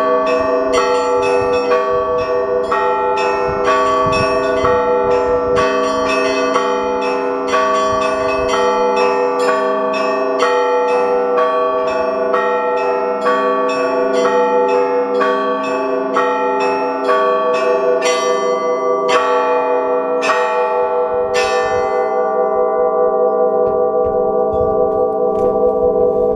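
Russian Orthodox monastery bells being rung in a peal (zvon): quick strokes on several bells of different pitch. About five seconds before the end the strokes stop and the bells ring on.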